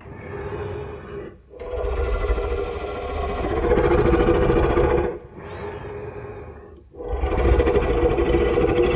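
Giganotosaurus roar sound effect: four deep, rough roars in a row with brief breaks between them. The second roar is the longest and the last runs on past the end.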